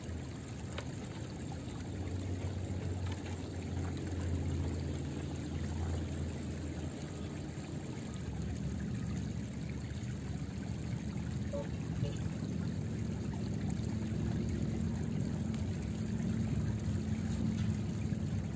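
River water flowing steadily, with a faint low hum underneath.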